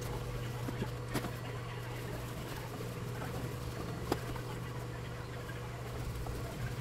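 Steady low background hum, with two sharp clicks, about one and four seconds in.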